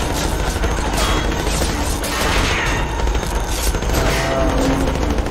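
Dense, continuous gunfire: many shots overlapping in a sustained volley, with a deep rumble underneath.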